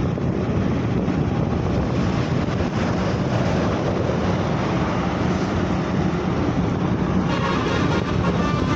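Steady road noise of a moving vehicle with wind buffeting the microphone. About seven seconds in, a wavering, warbling higher sound joins.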